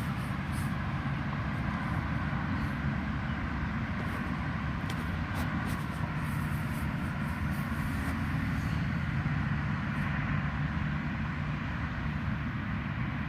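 Steady noise of road traffic, even throughout with no sharp events.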